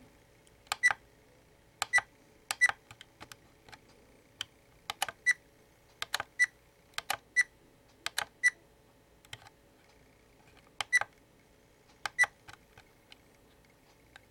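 Camcorder buttons being pressed again and again at an irregular pace, each press a sharp click and many with a short high beep, as the menu is stepped through.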